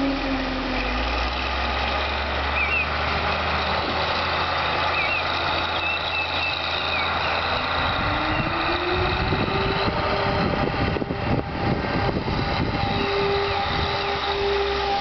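Heavy engine-driven machinery running. Its engine note drops at first, then rises about eight seconds in and holds, with rattling and clatter in the middle.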